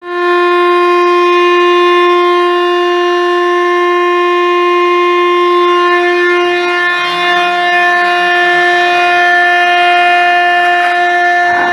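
Fire station alarm siren sounding one long steady tone to call out the volunteer fire brigade; its pitch dips slightly about seven seconds in.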